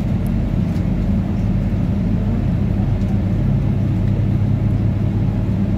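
Scania OmniLink CK230UB city bus underway, heard from inside the passenger cabin: a steady low drone from the engine and ZF 5HP504C automatic gearbox, its pitch shifting slightly partway through, with the air conditioning running and masking much of the drivetrain.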